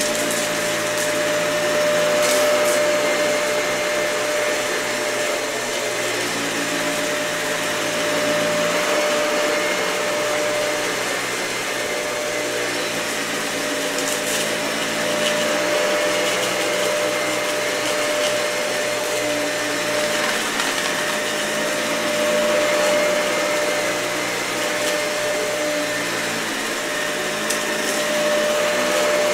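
Dyson vacuum cleaner running over a matted, dirty carpet: a steady motor whine, with the lower hum shifting in pitch every few seconds and a few brief crackles.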